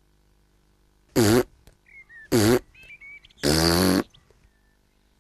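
A cartoon piglet hiccupping: three loud hiccups about a second apart, the last one longer.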